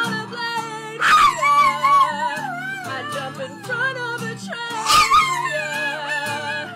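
Small dog howling along with a woman singing and strumming an acoustic guitar, the wavering howls riding over the chords.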